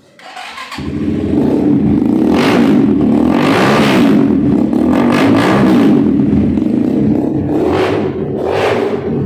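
Kawasaki Ninja 350cc replica motorcycle's engine catching just under a second in and running, revved in several short blips over a steady idle.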